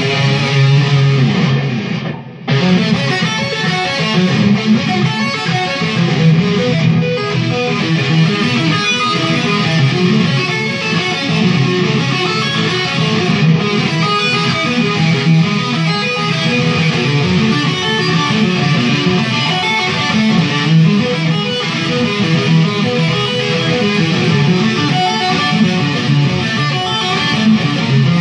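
Jackson electric guitar played through an amp with distortion: fast metal warm-up licks and arpeggios, with a short break about two seconds in.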